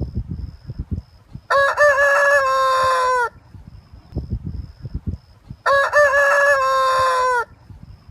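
A rooster crowing twice, each cock-a-doodle-doo about two seconds long and dropping in pitch at the end. An irregular low rumble runs underneath and between the crows.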